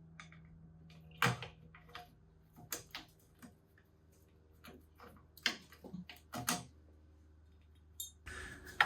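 Scattered light clicks and knocks, a dozen or so, of parts and hand tools being handled while the foot peg is taken off a dirt bike frame, over a steady low hum. A faint hiss comes up near the end.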